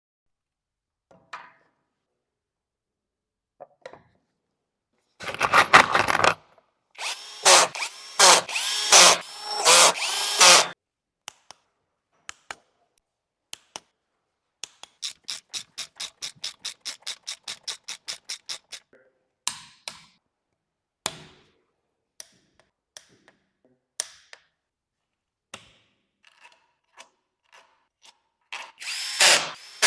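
Power tool run in several short bursts, its pitch rising and falling, then a few seconds of rapid even clicking, about five a second. Scattered single clicks and taps between, and another burst of the tool near the end.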